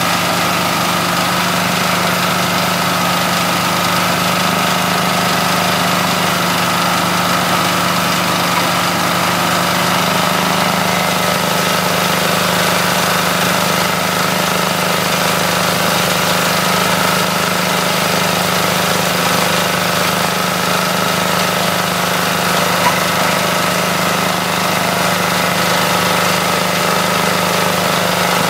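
Small stationary engine running steadily at an even speed, driving a coconut-frond shredder that spins empty with nothing being fed.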